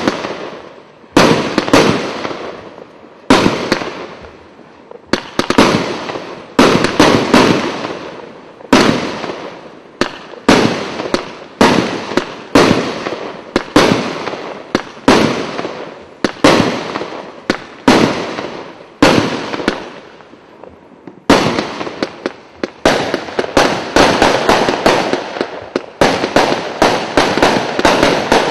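Kimbolton 'Get In!' 97-shot, 19 mm consumer firework cake firing: sharp bangs about every one to two seconds, each followed by a fading tail of small pops. About three quarters of the way through, the shots come quicker, several a second, in a rapid volley.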